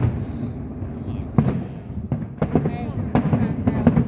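Fireworks show shells bursting in a string of sharp bangs, about six of them, most in the second half, over a continuous low rumble.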